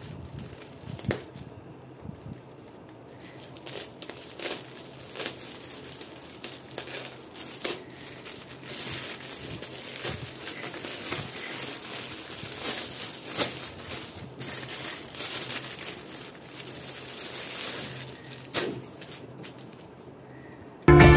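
A thin clear plastic packaging bag crinkling and rustling irregularly as it is cut open with scissors and handled, and the folded cloth inside is pulled out.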